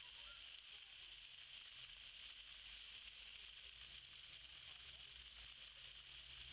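Faint, steady hiss of a floor fountain's water jets spraying and splashing onto the paving.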